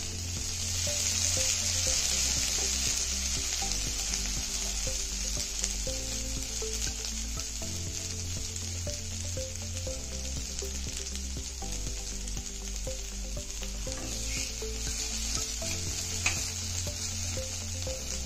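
Sliced baby potatoes sizzling in hot oil on an iron tawa, stirred and turned with a metal spatula. The sizzle is loudest in the first few seconds, just after more oil goes in. One sharp knock comes near the end.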